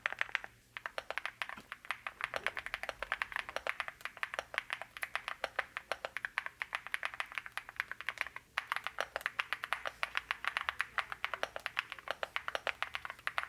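Typing on a DP104 full-size mechanical keyboard: a fast, even stream of keystroke clacks, with a brief break about two-thirds of the way through.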